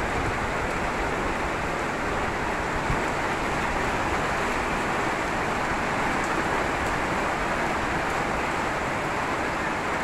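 Heavy rain pouring steadily onto potted plants and a tiled patio, an even, unbroken hiss.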